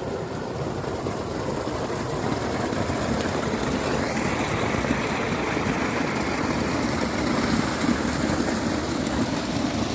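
Water falling from a small cascade down a rocky bank and splashing into a stone-lined irrigation channel: a steady splashing that grows a little fuller about four seconds in.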